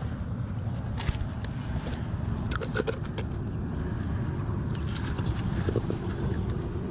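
Stones and dry twigs scraping and clicking as a hand searches among shoreline rocks for crabs, in short bursts about a second in, around three seconds and again around five seconds, over a steady low rumble.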